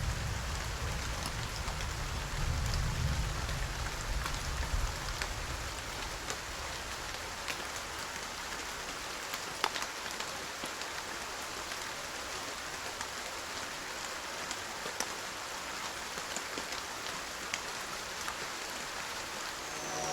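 Steady rain falling, with individual drops ticking sharply on a surface. A low rumble fades away over the first few seconds.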